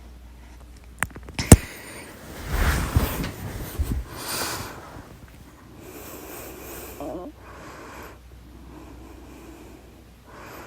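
A single loud, sharp hiccup about a second and a half in, followed by several noisy breaths.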